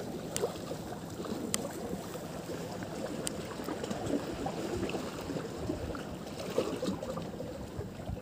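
Sea water lapping and splashing against a concrete breakwater, with wind on the microphone. A few faint clicks come through the steady wash.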